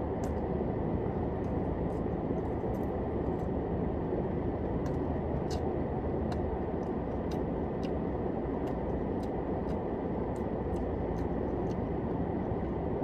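Steady low rumble inside a car cabin, with a faint thin tone above it and scattered faint clicks about once or twice a second.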